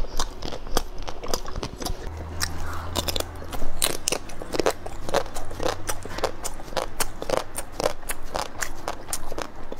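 Close-up crunching bites and chewing of a frozen, hard chocolate-shelled ice-cream bar: the coating cracks in sharp, crisp crunches, several a second.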